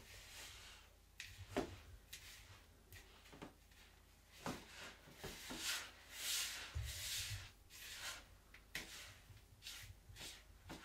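Dry brine of brown sugar and salt being stirred in a large mixing bowl: faint, irregular gritty scraping and rustling, with a few light knocks against the bowl.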